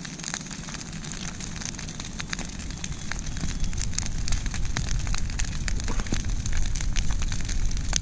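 Brush pile of dry tree limbs burning, with a constant scatter of sharp crackles and pops from the burning twigs. A low rumble builds from about halfway through, and the whole grows louder.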